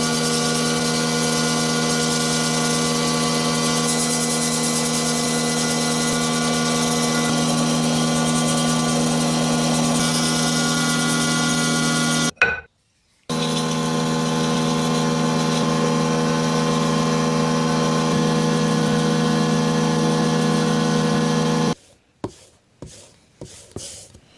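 Powered sharpener running steadily with a low hum while a spatula is ground on it. It cuts out briefly about halfway and stops a couple of seconds before the end, leaving a few short knocks.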